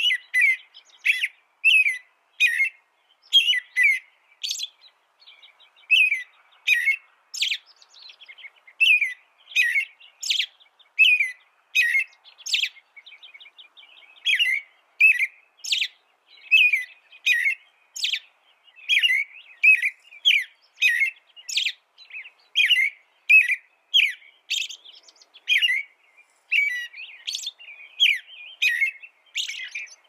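American robin singing: short whistled notes, about two a second, in runs broken by brief pauses.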